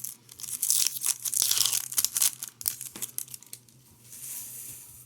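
A trading card pack's wrapper being torn open and crinkled in the hands: a run of quick, irregular crackling over the first three seconds or so, then a softer rustle.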